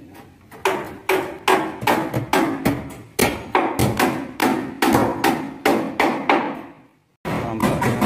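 Hammers driving nails into wooden fin boards, sharp strikes coming about three a second in an uneven rhythm. The sound cuts out briefly near the end, then the hammering resumes.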